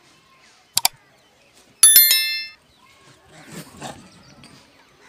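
Subscribe-button sound effects: a quick double mouse click, then about a second later a bright bell ding that rings out and fades within a second.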